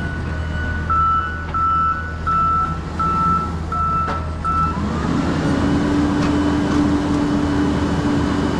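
Forklift backup alarm beeping about one and a half times a second over a steady diesel engine drone. The beeping stops about halfway through, and an engine note rises and holds as the forklift works by the trailer.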